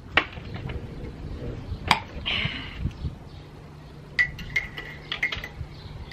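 Scattered clinks and knocks of glass jars and bottles being handled on a table: one near the start, one about two seconds in, and a quick cluster from about four seconds in.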